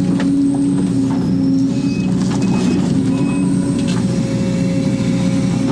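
Case 250D excavator's diesel engine running steadily under load, heard from inside the cab, with the hydraulics working as the bucket dumps its dirt and the arm swings back. A few faint clicks and short high tones sound over the engine.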